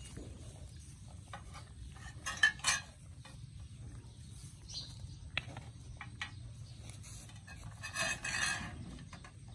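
Two puppies eating from a stainless-steel divided food tray, their muzzles and teeth clinking and scraping against the metal. The loudest clatter comes between two and three seconds in and again near the end.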